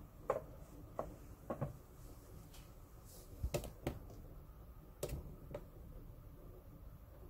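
Faint, scattered light clicks and knocks, about seven of them at uneven gaps, over low room tone.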